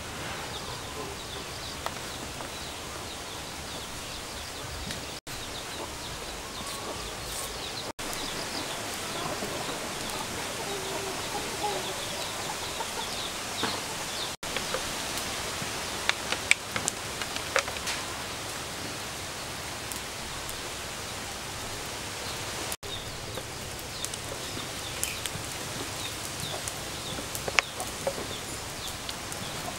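Outdoor yard ambience: a steady hiss with faint bird chirps, and a few sharp clicks in the second half.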